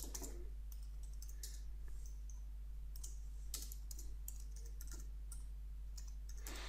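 Computer keyboard being typed on: irregular, light key clicks as a short phrase is entered, over a steady low electrical hum.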